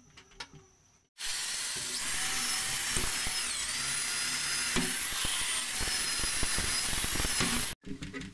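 Electric drill running steadily with a high whine while fitting a brass bolt to a wooden door. It starts about a second in after a few faint clicks, and cuts off suddenly near the end.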